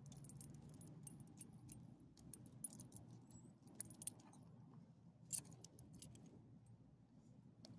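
Metal tag and leash clip on a small dog's collar jingling as the dog squirms and rolls on the pavement: a scatter of light metallic clinks, the loudest about five seconds in.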